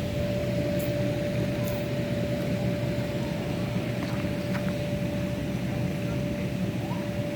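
Generator running with a steady hum: one constant tone over a low rumble, unchanging throughout.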